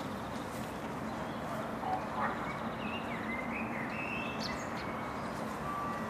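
Park ambience: a steady wash of distant background noise, with a few short bird calls between about two and five seconds in.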